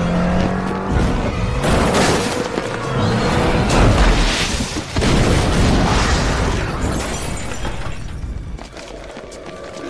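Movie sound effects of a car crash: several heavy booms with breaking, shattering sounds as a car smashes into a concrete pillar and catches fire, mixed with background film-score music. The crash noise dies down over the last few seconds.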